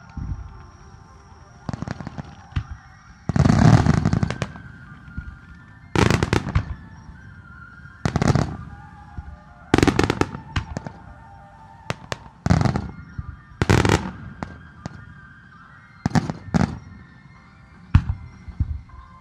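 Aerial firework shells bursting one after another: a dozen or so sharp booms spaced a second or two apart, the loudest a dense run of bursts lasting about a second, some three seconds in.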